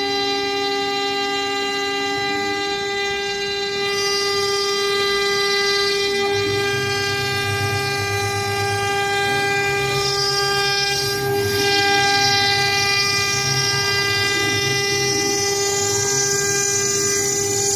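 3 kW water-cooled CNC router spindle running with a steady, high-pitched whine while the bit engraves a wooden board. From about four seconds in, a hiss of cutting joins it, and a low pulsing hum follows a couple of seconds later.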